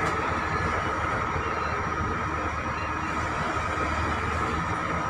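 Heavy construction machinery engines running steadily, with a steady high whine above the engine noise.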